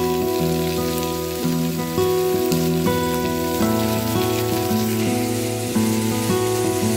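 Instrumental background music of held notes changing about every half second, over a crackling sizzle of diced carrots and bell peppers cooking in a frying pan.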